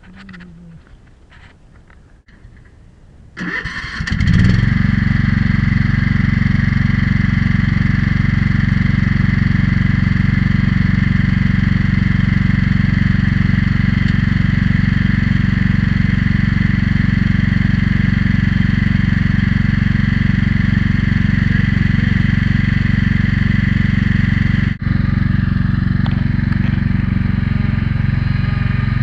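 Lawn mower engine starting about three and a half seconds in, then running steadily.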